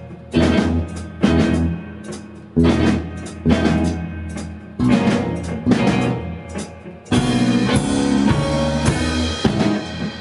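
A band playing live together: drum kit, electric bass, acoustic and electric guitars. They hit accented stabs together about once a second, then from about seven seconds in a denser, sustained stretch of ringing chords and drums.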